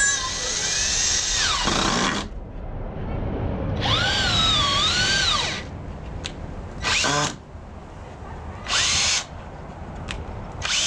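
Cordless drill driving screws into pallet wood, in runs of motor whine: a long run at the start, a second run whose pitch dips and climbs as it loads, then three short bursts.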